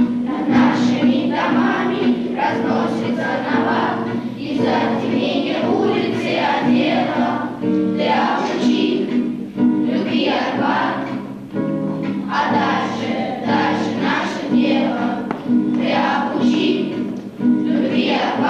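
A children's choir singing a song, accompanied by an acoustic guitar.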